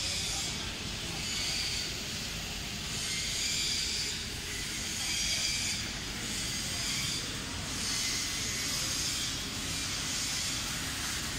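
CNC laser cutting machine cutting through sheet metal: a steady hiss from the cutting head and its assist gas, swelling and easing every second or two.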